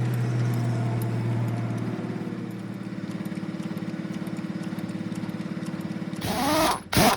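A machine running steadily with a fast even pulse, then a loud noisy burst with a falling and rising tone about six seconds in.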